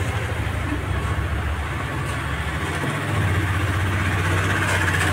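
A motor vehicle engine idling nearby in a steady low hum, its pitch stepping up about three seconds in, over a hiss of street noise.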